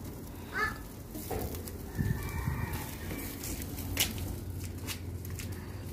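Chickens clucking in the background, with a short rising call about half a second in and a sharp click about four seconds in.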